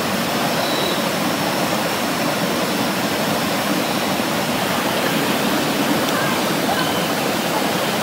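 Rushing water of a waterfall stream cascading over a rocky bed: a steady, even rush.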